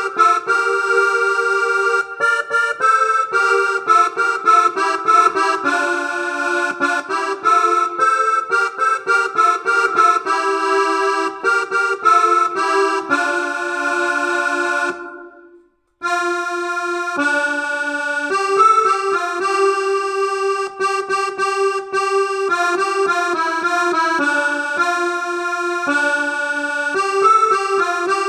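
Yamaha PSR-S670 arranger keyboard playing a melody over a held lower line in an accordion-like voice. About halfway through the sound fades out, goes silent for a moment, then the playing starts again.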